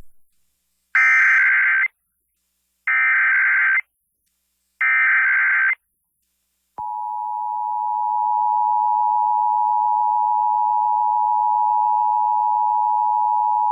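Emergency Alert System SAME header: three one-second bursts of buzzing digital data tones, a second apart. About seven seconds in, the steady two-tone EAS attention signal (853 and 960 Hz sounding together) starts, opening a Required Monthly Test.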